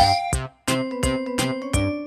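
Bouncy background music with a steady beat and rising swooping notes, briefly cutting out about half a second in.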